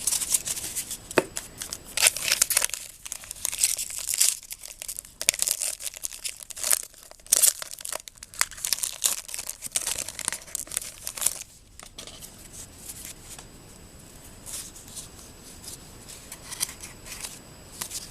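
Crinkling and tearing of a baseball card pack wrapper as a pack is torn open and handled, for about twelve seconds, then fainter rustling and clicks of cards being handled.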